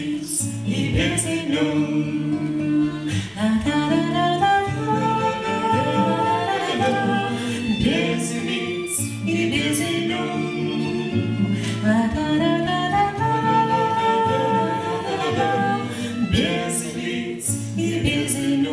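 Live song: two women and a man singing together in harmony, accompanied by acoustic guitar, with a violin playing along.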